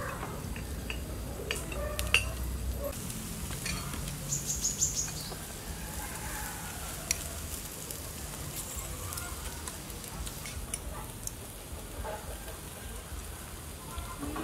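Beef sizzling steadily on a charcoal grill, with scattered clinks of spoons against ceramic bowls as people eat.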